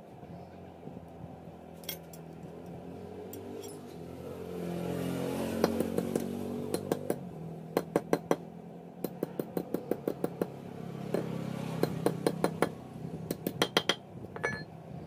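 A small hammer striking a thin steel strip on a small anvil in quick runs of sharp, ringing metal taps, shaping the curve of a handmade bicycle crown. A vehicle engine runs in the background, loudest and changing pitch around the middle.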